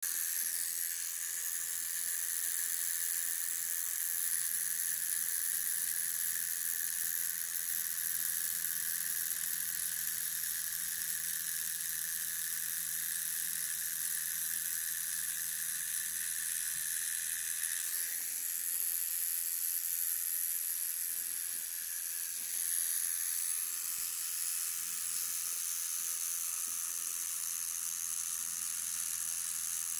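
Cartridge tattoo machine running steadily as it lines a tattoo: a continuous high-pitched whir with a slight hiss, shifting a little in tone about 18 seconds in.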